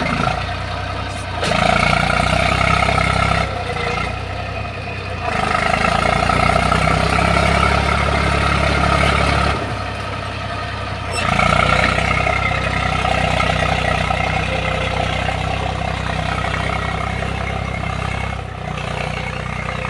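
Eicher tractor's diesel engine running under load as it hauls a cage-wheeled puddler through mud. The engine note swells and eases every few seconds.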